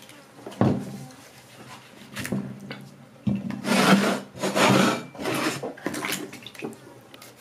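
Wet hands rubbing and handling okra pods in a plastic bowl of water as the okra is washed, with a sharp knock just over half a second in and a run of louder rubbing strokes around the middle.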